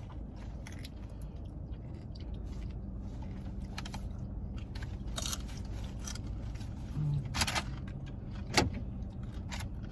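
Eating inside a car: tortilla chips crunching and food containers rattling in short bursts over a steady low hum, with a brief 'mm' about seven seconds in.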